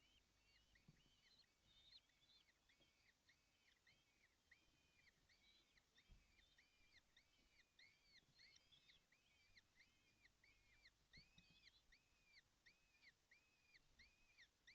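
Kestrel nestlings making faint, repeated begging calls. Short arched notes follow one another about one and a half times a second without a break.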